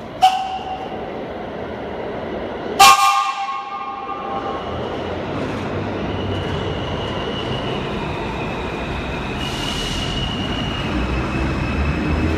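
Vintage New York subway train (BMT D-type Triplex and R1/9 cars) sounding its whistle: a short toot right at the start, then a loud blast of several tones about three seconds in lasting about a second and a half. After that the train's motors and wheels rumble, growing steadily louder as it pulls out.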